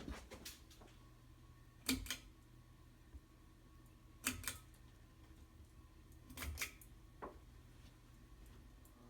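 Sharp mechanical clicks in four clusters about two seconds apart, from a ceiling fan's pull-chain switch being pulled and let go, over a steady low hum.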